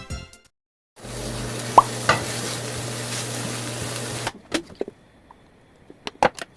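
Food sizzling in a frying pan, a steady hiss that cuts off abruptly, followed by a few sharp clicks and clinks of a utensil against the pan.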